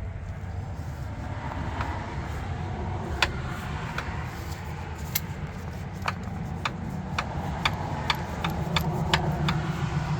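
Volvo T5 engine running with a steady low rumble, overlaid by sharp, irregular knocking clicks that come more often in the second half. The owner takes the knock for piston slap.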